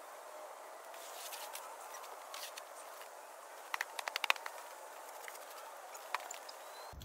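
Steady outdoor hiss, with a quick run of six or so sharp clicks or crunches about four seconds in.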